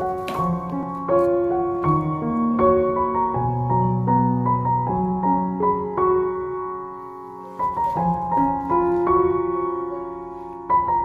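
Background piano music: a slow melody over chords, with a short lull about seven seconds in.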